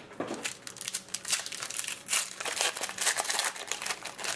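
Wrapper of a hockey card pack crinkling as it is torn open and handled, a dense run of irregular crackles that stops near the end.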